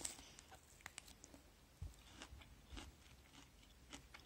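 Faint chewing of crisp starfruit (carambola) flesh: a series of soft, irregular crunches.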